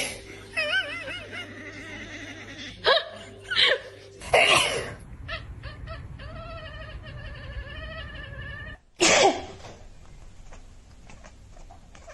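A person sneezing several times, and a cat answering with a wavering, chattering 'kekeke' call: the reaction many cats have to hearing a human sneeze. The cat calls twice, near the start and again in the middle.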